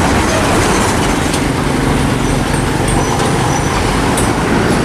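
Truck engine running steadily, a loud even rumble.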